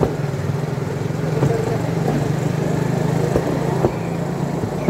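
Motorodillo rail cart's engine running steadily, with a few sharp clicks in between.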